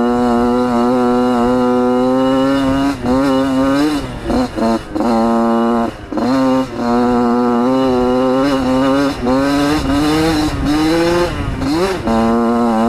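Dirt bike engine held at high revs under the rider, its note steady at first, then dipping and climbing back several times in the middle as the throttle is eased off and opened again, and rising once more near the end.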